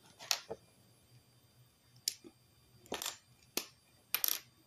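Small makeup items being handled and set down: several light clicks and taps, spaced irregularly.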